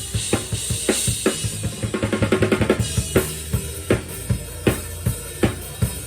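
Drum kit played with no processing: kick and snare strokes over a steady cymbal hiss, with a fast fill of rapid strokes about two seconds in, then a sparser groove.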